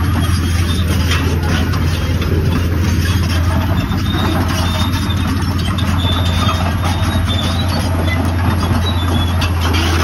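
Caterpillar 385C long-reach excavator's diesel engine running steadily with a low, even drone, with faint intermittent high squeaks over it.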